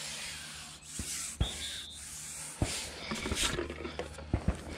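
A handful of light knocks and clicks with some rubbing, over a faint low steady hum: close handling noise.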